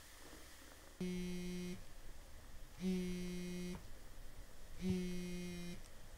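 A smartphone vibrating on a hard tabletop for an incoming call: three steady buzzes of just under a second each, about two seconds apart.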